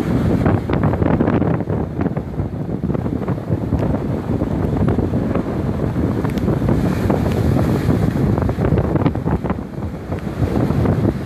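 Strong storm wind gusting hard against the microphone in a loud low rumble that swells and dips, with surf from the sea beneath it.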